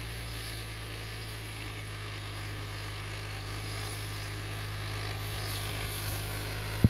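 Tractor engine running with a steady low drone that grows a little louder in the second half. A single sharp click comes just before the end.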